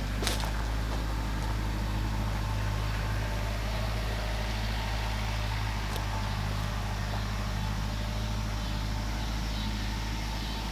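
An engine running steadily at constant speed: a low, even hum that holds without any change in pitch.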